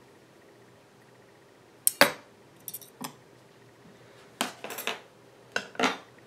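Long metal tongs clinking and knocking against a glass terrarium, in four short clusters of sharp clinks, the loudest about two seconds in.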